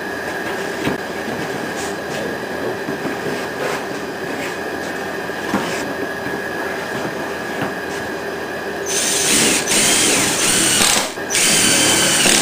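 A steady hum with a few light knocks as wooden blocks are set into a plastic tote. About nine seconds in, a hand-held power drill starts, its whine rising and falling in short bursts.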